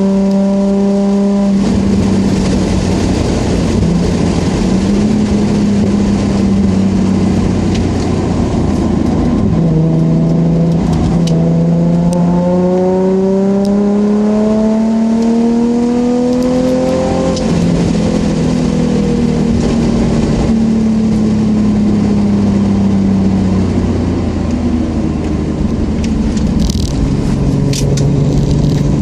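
Nissan 350Z's 3.5-litre V6 engine heard from inside the cabin while lapping, over steady tyre and road noise. Its note drops about a second and a half in, climbs steadily under acceleration from about ten to seventeen seconds in, then falls away slowly.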